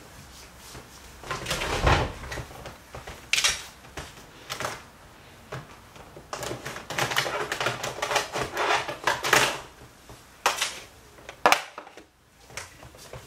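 Rummaging through a plastic basket of makeup products: plastic cases and packaging clicking and clattering irregularly.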